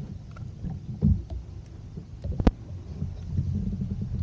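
Irregular low thumps and rumbles, with a sharp knock about two and a half seconds in.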